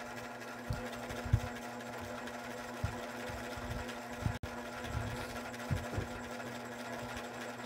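Steady mechanical hum made of several even tones, with a few faint low thumps scattered through it.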